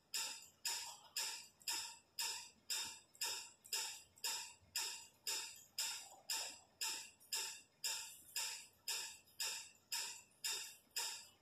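Pencil scratching across a painted wall in quick, even back-and-forth sketching strokes, about two a second.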